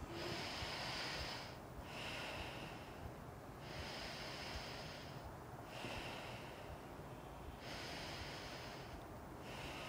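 Slow breathing in and out through one nostril: about three breaths, each in-breath and out-breath a soft airy hiss lasting a second or two, the hiss alternating between a higher and a lower pitch.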